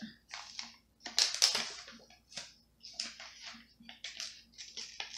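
Sticker label paper rustling and crinkling as the sheets are handled and stickers worked off their backing, in a string of short irregular bursts, the loudest about a second in.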